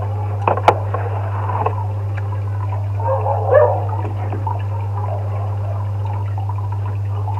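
Close-up eating sounds: a man chewing and slurping creamy fettuccine, with two sharp clicks about half a second in and a wetter burst of mouth noise around the middle, over a steady low hum.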